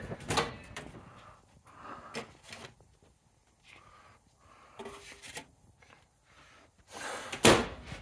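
Light clicks and knocks of an over-the-range microwave door and a paper plate being handled, then a louder thump of the microwave door being shut and latched near the end.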